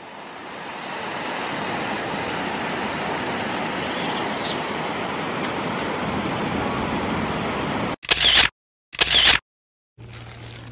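Mountain stream rushing steadily over rocks, fading in over the first second or two. Near the end it cuts out, and there are two loud, short bursts with silence between them.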